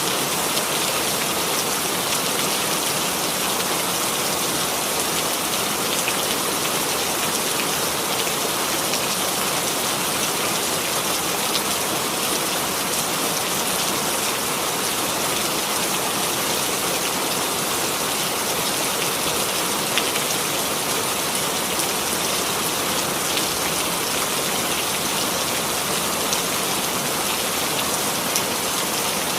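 Steady, even rainfall: a dense hiss of rain on a surface with scattered individual drop strikes.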